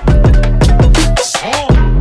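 Background music: an electronic track with a quick, steady drum beat and deep bass, and a synth note that bends up and down about a second and a half in.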